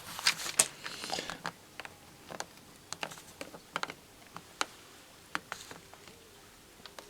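Small metal clicks, taps and scrapes as the folded-over tabs holding a cheap door lock's sheet-metal case shut are lifted up. A short scraping at the start, then sparse sharp clicks.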